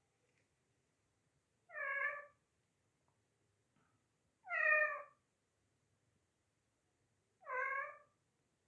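A pet parrot mimicking a kitten's meow, three separate meow calls a few seconds apart.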